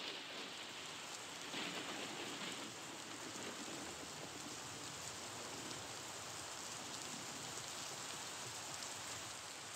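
Steady, even hiss of rain-like noise with no speech or music, swelling briefly about two seconds in.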